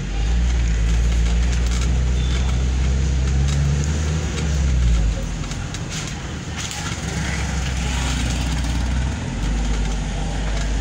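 Engine and road noise of a moving vehicle heard from on board: a steady low hum that eases off for a few seconds in the middle, then comes back.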